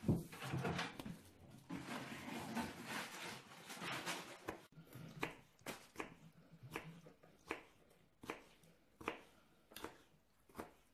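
Small paring knife cutting pickled gherkins on a plastic cutting board. About halfway through, steady dicing sets in: sharp knife taps on the board, roughly three every two seconds.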